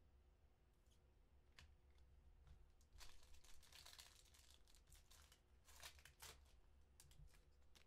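Quiet tearing and crinkling of Prizm football card pack wrappers being ripped open, in two short spells about three seconds in and again near six seconds, with a few light clicks and rustles between.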